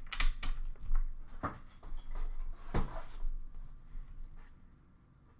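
Trading cards being handled and set into a plastic bin: a few sharp taps and clicks with sliding, rubbing card noise in the first three seconds.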